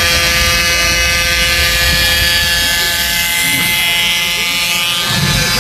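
A small moped engine buzzing steadily at speed over wind and road rumble heard from a moving car.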